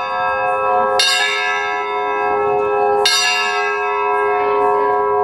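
Russian Orthodox monastery bells ringing (kolokolny zvon): two fresh strikes, about a second in and about three seconds in, over the long hum of the larger bells still sounding.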